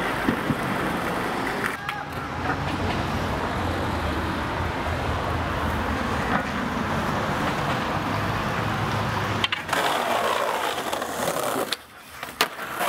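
Skateboard wheels rolling over concrete pavement, a steady rumble that breaks off abruptly a few times. Near the end the rolling drops out while the board is in the air, then a sharp smack as it lands.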